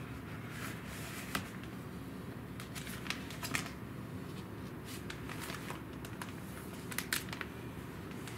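Paper pages of a timetable folder rustling and clicking in short, sharp bursts as the folder is opened and handled, over a steady low room hum.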